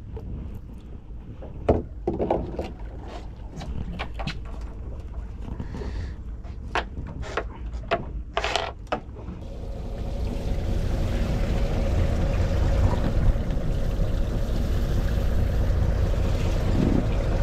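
Fishing boat's engine running with a steady low rumble, growing louder from about ten seconds in, with a faint held tone over it. Sharp clicks and knocks come in the first half.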